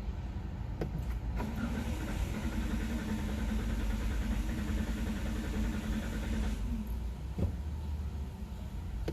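Toyota Rush being cranked by its starter for about five seconds on a hard start, the sound then stopping, followed by a single sharp click.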